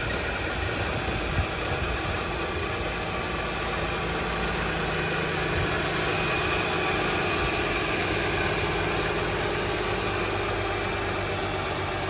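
Mercedes-Benz M272 V6 idling steadily just after a cold start, carrying an odd extra noise that the owner cannot trace. It persists after a new camshaft magnet and belt tensioner, and comes with a cold-weather misfire.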